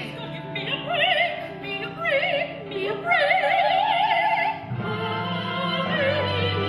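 Operatic singing with wide vibrato over orchestral accompaniment; a high note is held for about a second and a half near the middle, then the line drops lower.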